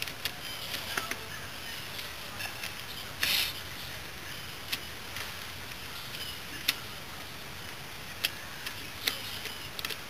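Hand screwdriver turning screws into a Yamaha Badger engine cover: scattered small metallic clicks and ticks of the tool on the screws and casting, with a brief louder noise about three seconds in.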